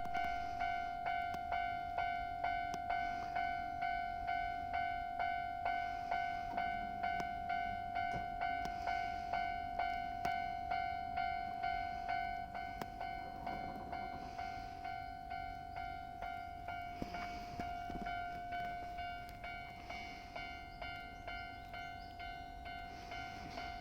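Japanese railway level-crossing warning bell ringing in an even, repeating ding-ding rhythm, with a Keio Inokashira Line train rumbling through the crossing about midway.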